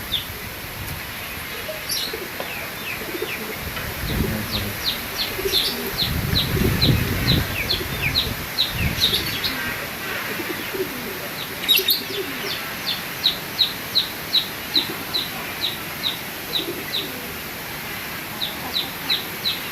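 A pet bird calling over and over in runs of short, high chirps, about three a second, pausing between runs. Gusts of strong wind rumble on the microphone in the first half.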